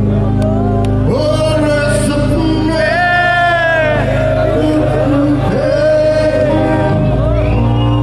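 Live band music with a male voice singing long, held notes over a steady low accompaniment, loud and heard from the audience.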